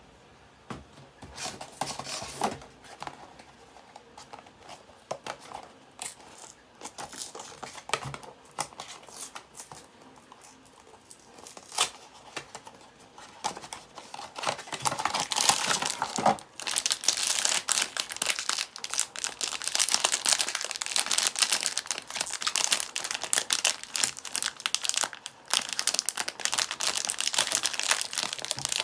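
A small cardboard blind box being handled and opened, with scattered light taps and scrapes. About halfway in, the sound turns to the continuous crinkling and crumpling of a foil wrapper being torn open and scrunched in the hands.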